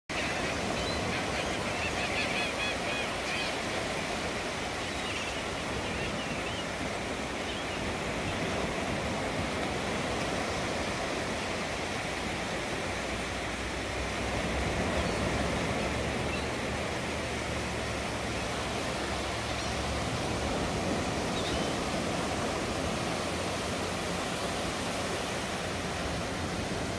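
Small waves breaking and washing up a sandy beach in a steady rush of surf. A low rumble joins it for several seconds around the middle.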